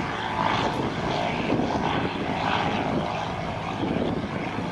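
Engine and propellers of a 1911 Wright B Military Flyer replica in flight, running steadily.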